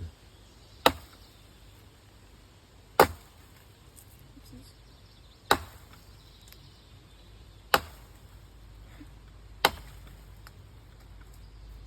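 Five axe blows into a dry, dead log, spaced about two seconds apart, each a sharp single knock from a 2¼-pound Snow and Nealley boy's axe.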